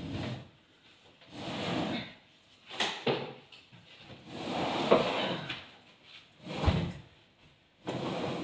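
Sectional sofa seat units being pushed across a wooden floor: several separate scraping slides, each about a second long, with a short low thump about two-thirds of the way through.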